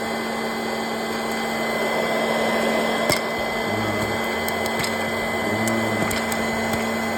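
Electric hot-air popcorn maker running with a steady fan-and-motor whir and a constant hum. A sharp click about three seconds in and a few fainter clicks later.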